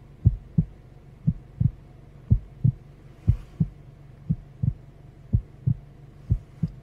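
Heartbeat sound effect: paired low thumps, lub-dub, about one beat a second, over a steady low hum.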